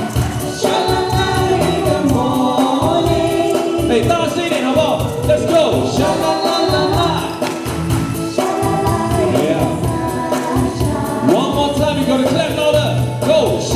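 Live amplified pop song: a woman singing into a microphone over band backing, with maracas shaken to a steady beat.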